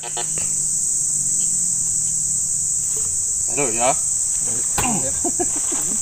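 A steady, high-pitched chorus of insects, shrilling without a break. A person's voice makes brief sounds about four and five seconds in.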